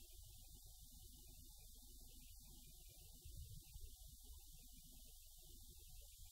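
Near silence: only a faint, steady low rumble of background noise, with no whistles, calls or barking.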